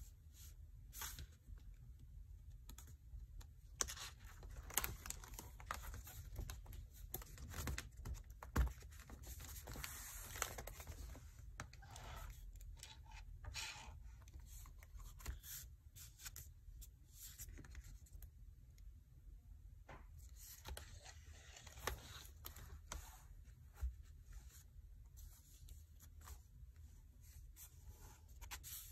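Faint rustling and crackling of thick watercolour-paper pages in a spiral-bound sketchbook as they are handled and turned, in irregular bursts with scattered sharper clicks.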